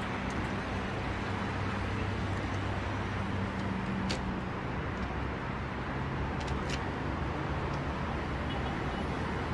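Road traffic passing on a multi-lane road: a steady wash of tyre and engine noise, with the low hum of passing vehicles' engines that fades about halfway through. A few faint, short high clicks come in the middle.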